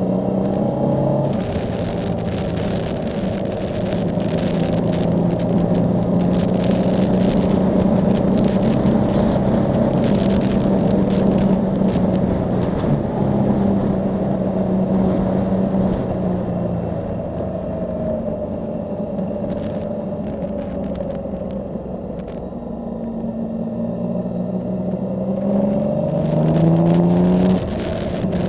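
Yamaha Tracer motorcycle engine running under way on a ride, with a rush of wind noise. The engine holds a steady pitch for most of the time, dips a little, then rises as the bike speeds up near the end and falls away suddenly just before the end.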